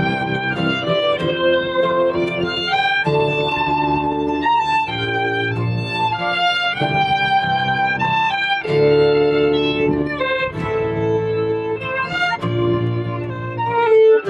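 Fiddle playing a tune over guitar accompaniment.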